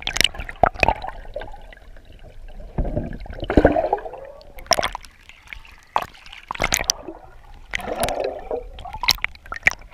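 Sea water sloshing and gurgling around a submerged action camera, with bubbles and irregular sharp knocks of water against the housing.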